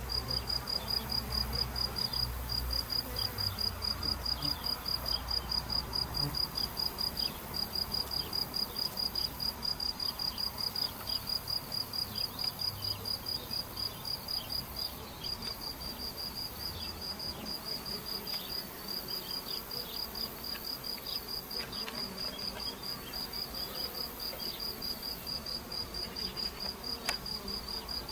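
A cricket chirping in a steady run of rapid, evenly spaced, high-pitched pulses. Under it is a faint low hum of honeybees flying at a Warré hive's entrance.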